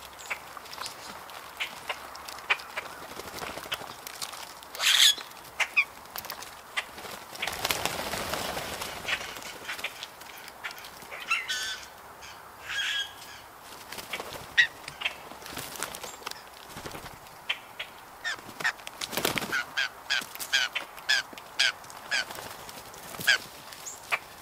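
Blue jays foraging on the ground: many short, sharp ticks and taps as they peck and hop in dry wood chips, with a few harsh, honking calls, the loudest about five seconds in and others around twelve to thirteen seconds.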